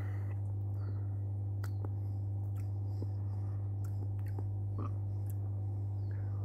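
A steady low hum throughout, with faint wet mouth sounds of a sip of lager being held and tasted, scattered small clicks and a few faint, short, high chirps.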